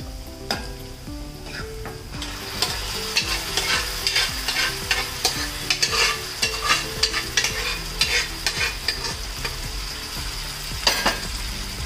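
Cooked dal going into a sizzling tempering of oil, onions and curry leaves in a kadai, with the pan frying steadily. From about two seconds in, a spoon stirs it, scraping against the pan in repeated short strokes.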